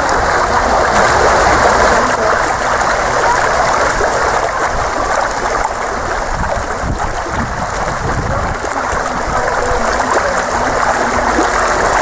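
Steady rushing of water in a swimming pool, with light splashing as a swimmer moves through it.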